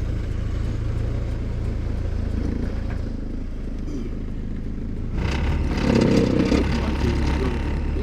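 A car running along a road, heard as a steady low engine and road rumble. A bit past halfway a louder hiss of traffic or tyres joins in.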